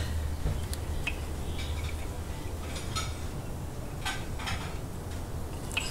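Faint scattered metal clinks and scrapes as a freshly removed piston and connecting rod from a Toyota 1ZZ-FE engine are handled, over a steady low hum.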